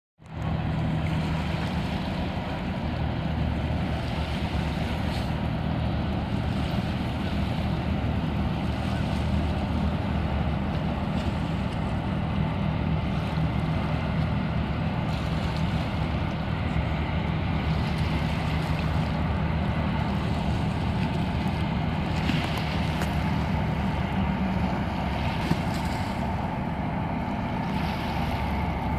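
FDNY fireboat cruising past at speed, its diesel engines giving a steady low drone, mixed with the wash of its wake. Brief gusts of wind hit the microphone now and then.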